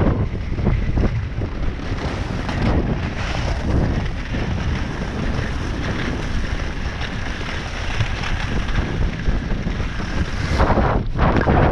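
Wind buffeting the microphone during a fast downhill ski run, with the skis hissing over groomed snow; a louder scrape of the ski edges comes near the end.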